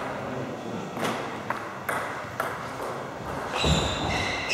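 Sharp clicks of a table tennis ball striking bats and the table, several of them about half a second apart. Near the end a louder high-pitched squeal sets in.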